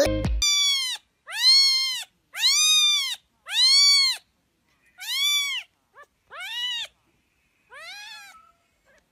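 A cat meowing over and over: about seven high meows, each rising and then falling in pitch. The first three are the loudest and longest; the later ones are shorter and fainter, with one brief chirp among them.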